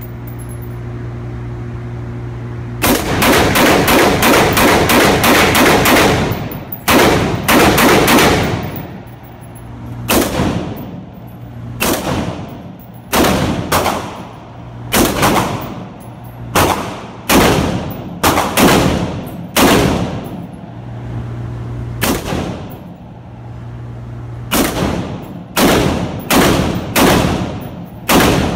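AR-15 rifle fired on an indoor range: a fast string of shots about three seconds in, then single shots about a second apart, each one ringing on briefly. A steady low hum fills the pauses between the groups of shots.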